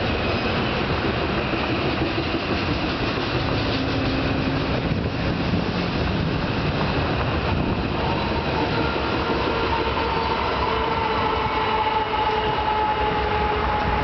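Union Pacific coal train's hopper cars rolling over a railroad bridge: a steady rumble and clatter of wheels on the rails. A faint steady whine comes in about halfway through.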